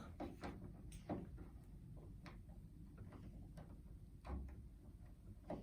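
Faint scattered metallic clicks and scrapes of a lever-lock pick and decoder tool being slid into the keyhole of a 5-lever lock, with a duller knock about four seconds in.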